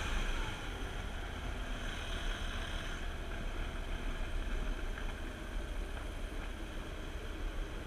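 Copperhead surface-drive mud motor running steadily, driving the boat along.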